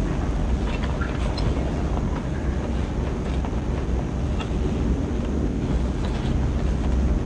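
A steady low rumble with a few faint ticks on top.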